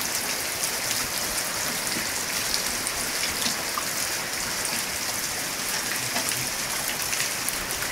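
Steady heavy rain falling on a wet flagstone and tiled patio, a dense patter of many small drop hits.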